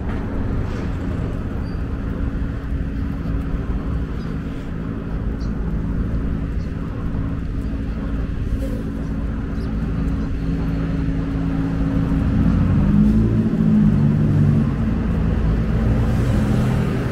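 Steady low hum of road traffic, with a motor vehicle's engine growing louder as it passes close about twelve seconds in.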